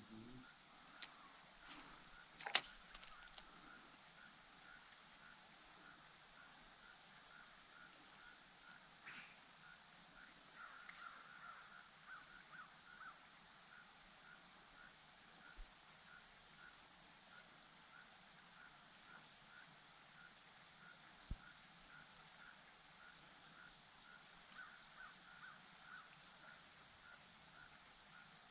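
Steady, high-pitched insect chorus trilling without a break, with a lower chirp repeating about twice a second alongside it. One sharp click sounds about two and a half seconds in.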